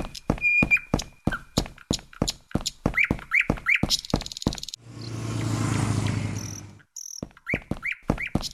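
Sound-effects track: a fast, even run of sharp knocks, about five a second, with short bird-like chirps over them. About five seconds in they give way to a swelling rushing noise with a low hum that cuts off after about two seconds, and the knocks and chirps start again near the end.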